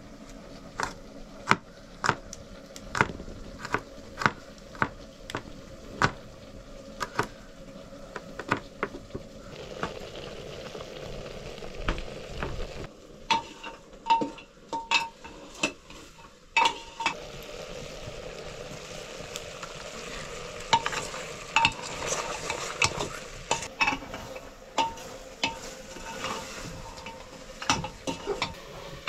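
A metal spoon stirring and scraping in a metal pot, knocking against it again and again, while food sizzles as it fries; the sizzling comes in about a third of the way through.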